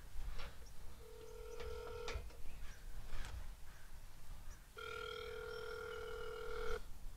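Mobile phone ringing on its speaker: two steady, even ringing tones, a short one about a second in and a longer one of about two seconds near the end, with a few faint clicks around them.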